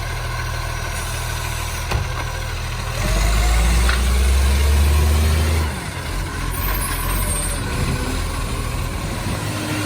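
Recycling garbage truck's diesel engine running steadily, revving up louder for about three seconds from three seconds in, then dropping back to a steady run.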